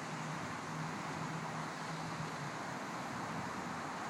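Steady outdoor urban background noise, like distant traffic, with a faint low hum through the first half. No firework bangs stand out.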